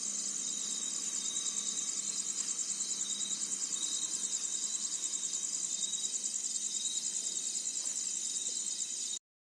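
Chorus of insects shrilling steadily at a high pitch with an even pulsing, about five pulses a second. It cuts off suddenly near the end.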